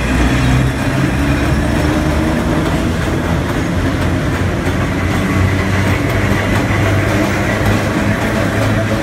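Preserved wooden Brooklyn Rapid Transit elevated subway cars rolling along a station platform: a steady low rumble of wheels and motors, with a faint high squeal coming in about halfway.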